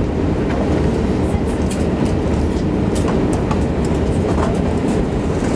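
Steady low rumble inside the cabin of an Airbus A340-600 parked at the gate, with scattered light clicks.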